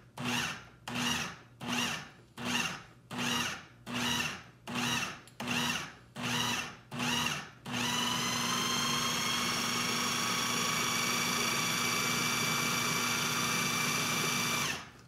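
Food processor pulsed about a dozen times in quick succession, nearly two pulses a second, breaking up watercress, peas, crème fraîche and butter pieces; about halfway through it is switched to run continuously for some seven seconds to puree the mix, its whine rising as it spins up, then it stops.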